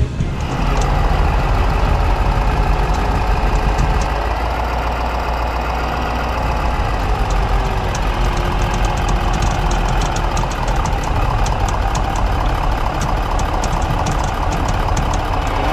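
Pickup truck engine running steadily at low speed and idle, picked up close by a camera on the cab roof, with a light fast ticking over it.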